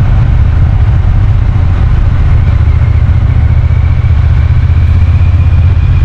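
Triumph Bonneville T120's 1200 cc parallel-twin engine running steadily under way, heard from on the bike as a loud, deep, even exhaust drone. A faint high whine slowly rises in pitch over the second half.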